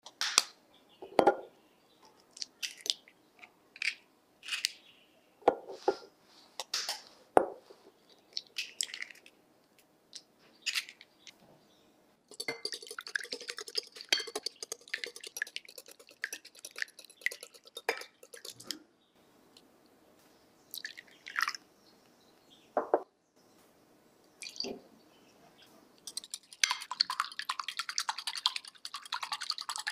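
Eggs being cracked on the rim of a glass mixing bowl, a string of separate sharp taps and knocks. About twelve seconds in, a wire whisk starts beating the eggs in the glass bowl, a fast, dense clatter that stops for a few seconds, leaving only a few knocks, then starts again near the end.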